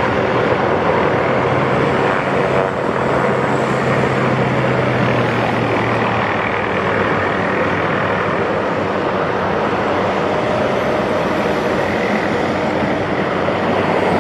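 MD530F helicopter's turbine engine and rotors running steadily, a dense continuous noise with an even, machine-like hum.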